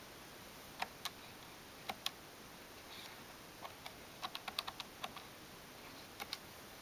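Keypad buttons on a Thrane & Thrane phone handset being pressed: sharp separate clicks, a few in quick pairs, with a faster run of about eight in the middle.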